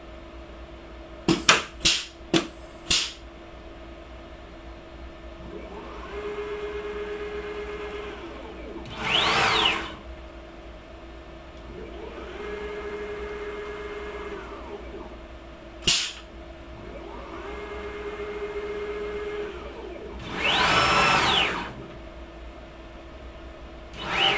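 A CNC router running an automatic tool change on an AMB FME-W spindle. A cluster of sharp clicks comes about a second in as the tool is released and ejected. The stepper-driven axes whine three times as the machine moves, and twice there is a louder noisy burst whose pitch rises and then falls.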